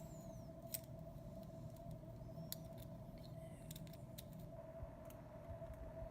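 Faint, scattered clicks of small plastic toy pieces being handled and fitted together, over a steady background hum.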